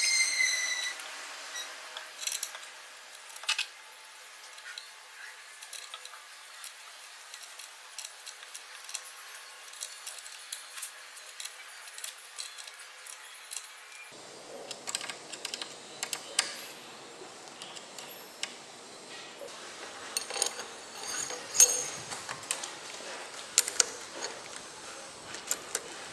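Scattered light metallic clicks and clinks from hands handling a corded drill clamped in a bench vise, with a short high ring at the start; the drill motor is not running.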